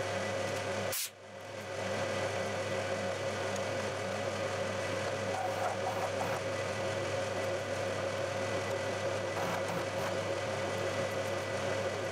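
Milling machine spindle running steadily while spot drilling holes in a metal plate, a constant mechanical hum with a brief break about a second in.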